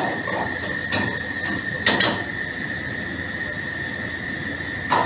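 Metal pans and utensils clanking on a commercial gas range: a few sharp knocks, roughly a second apart, two of them close together about two seconds in. Under them run a steady high-pitched whine and a background hiss.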